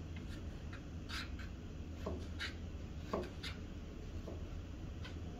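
Large kitchen knife slicing raw chicken breast on a cutting board: about ten irregular taps and short scrapes of the blade, over a steady low hum.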